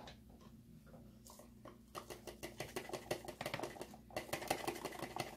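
Grated Parmesan cheese being poured and shaken from a glass jar into a plastic measuring cup: a rapid patter of small ticks that starts about two seconds in, pauses briefly near four seconds, then picks up again.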